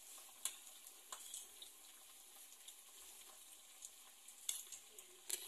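Faint, steady sizzle of empanadas frying in very hot oil, with a few small pops.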